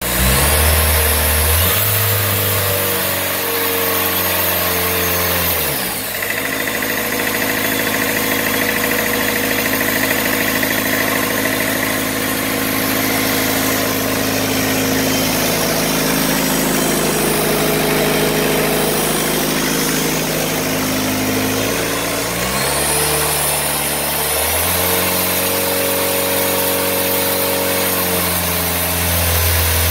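Isuzu diesel engine running on a run-in stand during its break-in run, its engine speed changing about six seconds in and again around twenty-three seconds.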